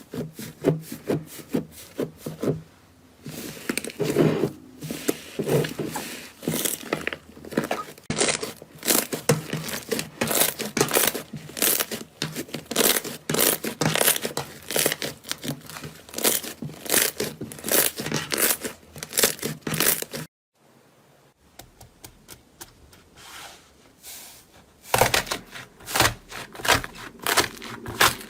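Slime being squeezed, stretched and poked by hand, giving a dense run of wet crackles and pops. The crackling breaks off for a moment about twenty seconds in, then starts again.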